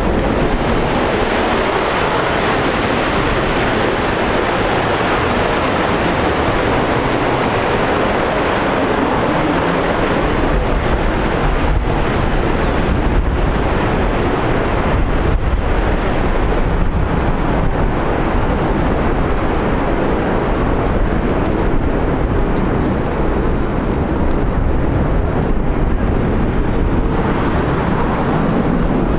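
Twin turbofan engines of a Blue Angels F/A-18 Hornet running at takeoff power, a loud, steady jet noise that carries on as the jet leaves, with crackling about halfway through.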